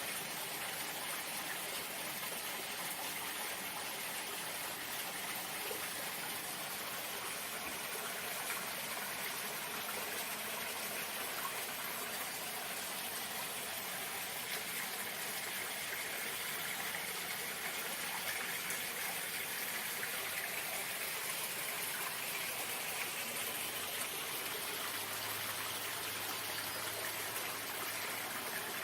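Running water, a steady rushing and trickling flow with no pauses or breaks.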